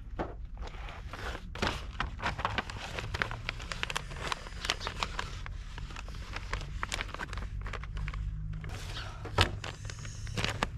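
A large vinyl decal sheet on its paper backing rustling and crinkling as it is handled and pressed against a car door, in many small irregular crackles over a steady low rumble. There is one sharp louder tap about nine seconds in.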